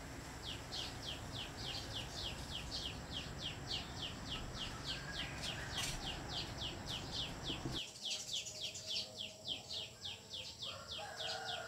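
Steady animal chirping: one falling chirp repeated evenly about four times a second, over a thin high whine. The low background noise under it drops away abruptly about eight seconds in.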